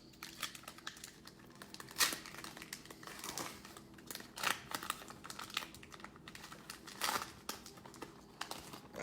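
Cellophane wrapper of a pack of trading cards crinkling and tearing as it is opened, with irregular crackles and two sharper snaps, about two seconds in and about seven seconds in.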